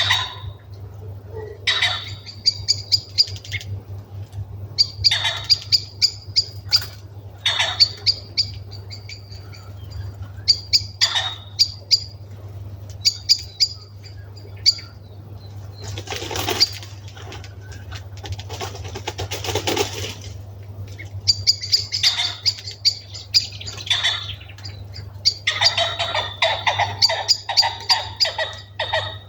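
Birds settling to roost in a hawthorn tree: many short, high calls and chinks in clusters throughout, with two brief flurries of wing flutters and rustling near the middle. These are winter roosting birds, which the owner takes to be mainly thrushes.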